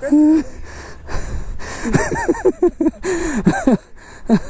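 Men's voices in short exclamations and breathy vocal sounds, with wind rumbling on the microphone.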